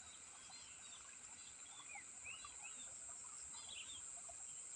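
Faint outdoor ambience: a steady high-pitched hiss with scattered short, faint bird chirps.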